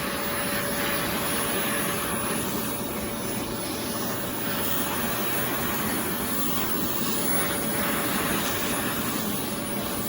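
Oreck Commercial XL Pro 5 bagged canister vacuum cleaner running steadily: a constant motor whine over the rush of air through the hose.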